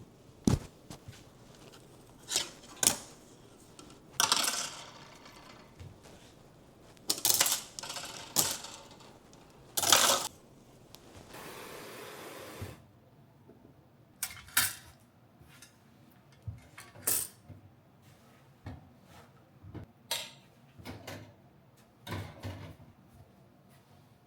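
Kitchen cleaning sounds: scattered light clinks and knocks of hard items being handled and set down, several short rustling or scrubbing swishes, and a steady hiss lasting about a second and a half just before the middle.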